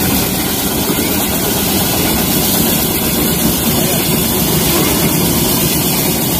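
Engine of a small tourist train's locomotive running steadily as the train passes along an elevated track overhead.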